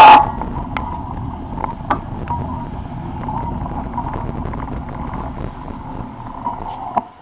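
Bicycle rolling over paving stones, with wind buffeting the handlebar-mounted camera's microphone and the frame and suspension rattling in scattered short knocks. A loud burst comes right at the start, and the noise drops away near the end as the bike slows.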